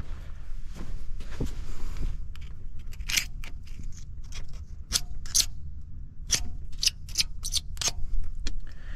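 Metal pick scraping and clicking against a forestry mulcher's tooth mount, cleaning packed debris out of the seat before the tooth goes on. Irregular sharp metallic clicks with some scraping.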